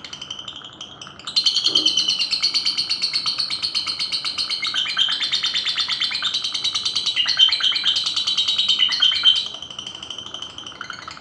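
Lovebird singing one long, rapid chattering trill, high-pitched and continuous for about eight seconds. It starts about a second in and stops suddenly near the end.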